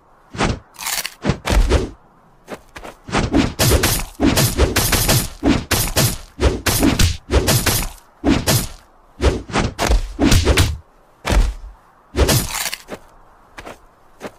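Cartoon fight sound effects: a rapid, irregular string of loud hits, thuds and crunches, broken by short pauses.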